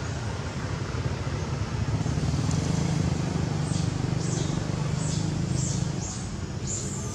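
A baby long-tailed macaque squeaking in short, high, falling squeaks about twice a second, starting about halfway through as its mother grabs and handles it, over a steady low rumble.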